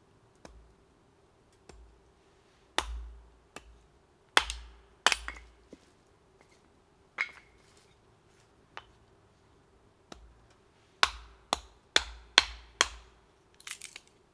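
Small pieces of wood being chopped by hand: irregular sharp knocks and cracks, some single and some in quick succession, with a fast run of five strikes a little after halfway and a short cluster near the end.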